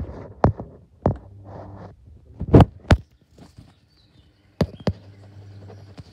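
Loud clicks, two of them in close pairs, as the Challenge 16-inch pedestal fan's switch is worked, with the fan motor's low steady hum running after the click about a second in and again near the end.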